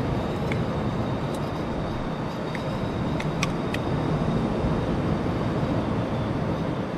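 Steady rumble of surf and wind, with a few light clicks from the cap of a plastic oil bottle being worked open between about half a second and four seconds in.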